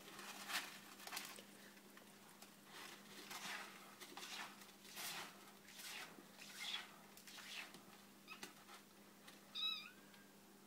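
Eight-week-old kittens play-fighting on a fabric cat bed: a run of soft scuffling sounds, and one short high-pitched kitten mew near the end.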